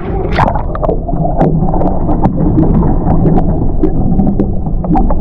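Water sloshing and churning in a boat's live well under a steady rumble of wind on the microphone, with scattered sharp taps and clicks.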